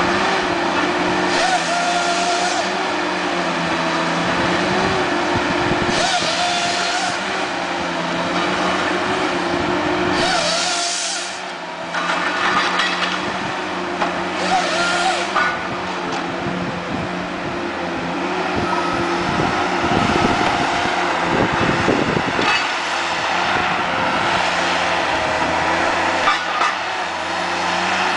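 Tigercat tracked harvester's diesel engine running steadily under hydraulic load while its Waratah 624 harvesting head processes pine stems. Short bursts of hissing noise come about every four seconds in the first half, fitting the head's chain saw cutting the stem into logs.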